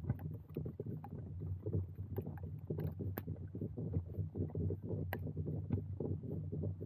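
Muffled wind rumbling against the camera during a snowstorm, with many irregular small knocks and crunches of walking in snow and handling.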